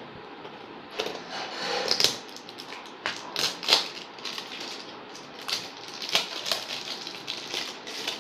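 A small cardboard mobile-phone box being opened by hand: irregular scraping, rustling and sharp clicks of the paperboard as the flap is worked open and the box is turned over. It starts about a second in, with the loudest scrapes near two and four seconds.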